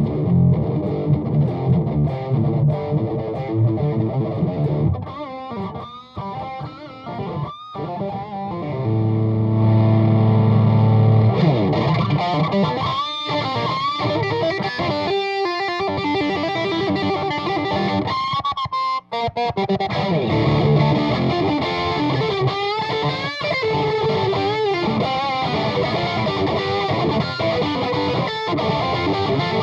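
Electric guitar distorted by a Bogner Burnley pedal, played through an Ampeg GVT5H valve amp on low power and a Jet City 2x12 cabinet. Chunky rock chords lead to a long held chord about nine seconds in, then single-note lead lines with string bends.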